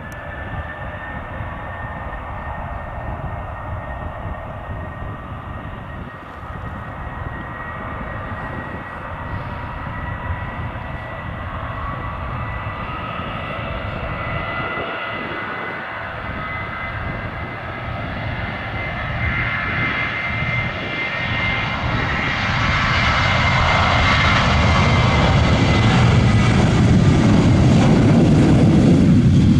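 Boeing 737 jet engines at takeoff: a steady high whine over a low rumble, growing much louder in the last several seconds as the jet accelerates down the runway and passes close by.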